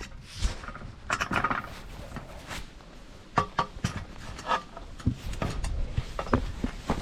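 A person climbing a hunting tree stand: irregular knocks and clicks on the ladder, with scraping and clothing rustle between them.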